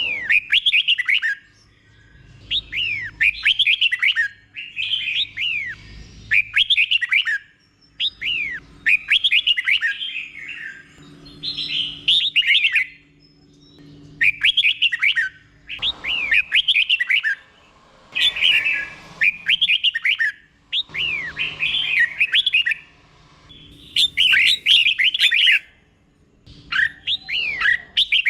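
Red-whiskered bulbul singing its slow, clear doubled song: short phrases of quick falling whistled notes, one phrase about every two seconds.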